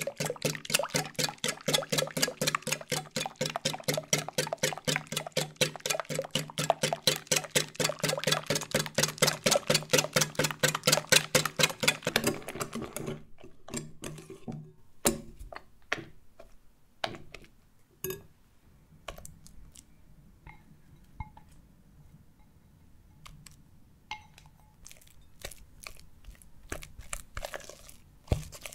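Wire whisk beating a cream mixture in a glass bowl: fast, even strokes of about five a second against the glass. About 13 seconds in the rapid beating stops, giving way to slower, scattered taps and scrapes of the whisk in the thickened cream.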